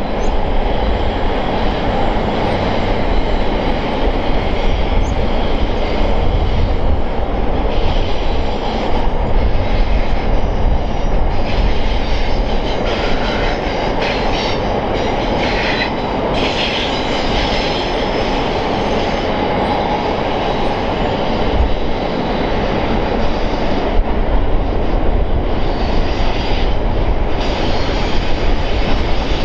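Freight train's container wagons rolling steadily across a steel-girder rail bridge, a continuous rumble of wheels on rail, with a few brief higher-pitched wheel squeals near the middle.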